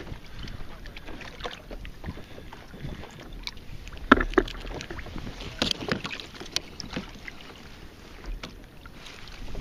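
Steady wind and water noise around a kayak at sea. Sharp knocks and rustles come about four seconds in and again around six seconds, as a caught fish is unhooked by hand and dropped into a plastic bag.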